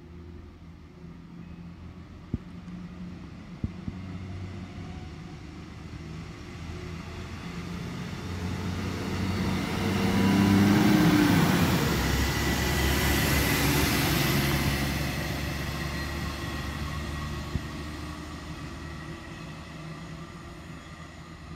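SA132 diesel railcar (PESA 218M) approaching and passing close by, its diesel engine and wheel noise growing to a peak about ten to fourteen seconds in, with a drop in pitch as it passes, then fading as it pulls away.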